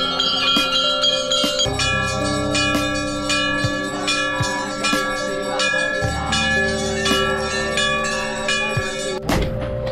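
Temple bells rung again and again for the evening aarti: repeated strikes about twice a second, their ringing tones overlapping and sustained.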